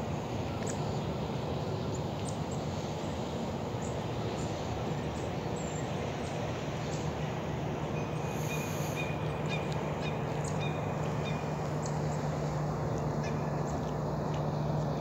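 Steady outdoor rushing noise with a low hum under it, and a few short bird calls over it, including a thin high call lasting a few seconds past the middle.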